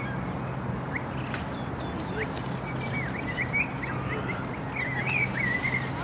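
Several birds calling with short, scattered chirps and whistled notes over a steady low background hum.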